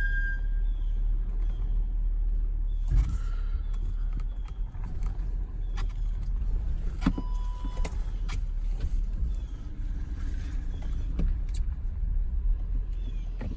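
Audi Q7 rolling with a steady low rumble; a high, steady squeal, typical of brake squeal, dies away in the first half second. Light clicks, creaks and a short beep-like tone come through later.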